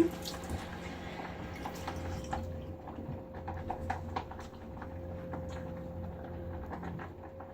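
Water splashing and dripping at a bathroom sink as lather is rinsed off, with scattered small drips and splashes over a steady low hum.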